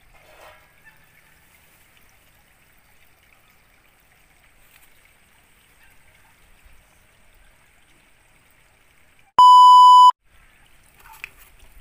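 Test-card beep: one loud, steady electronic tone lasting under a second, about nine and a half seconds in. Before it there is only faint background noise.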